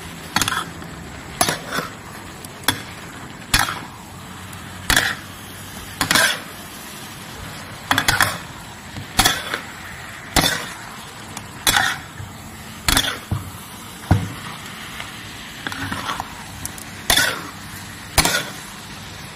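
A metal spatula scraping and knocking against an aluminium wok as meat and spices are stirred, about one stroke a second, over a steady low sizzle of frying.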